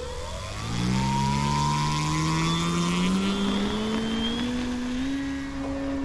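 Electric motor and propeller of a SebArt Katana S 50E aerobatic RC plane spooling up for takeoff. The hum jumps louder about a second in, climbs steadily in pitch as the plane accelerates and lifts off, and levels out near the end.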